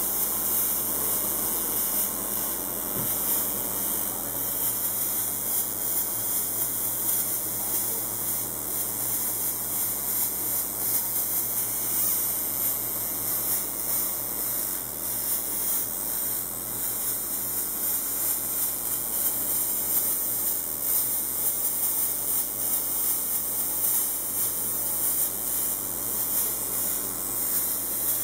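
Automated welding station at work on a row of clamped steel parts: a steady hiss over a low hum.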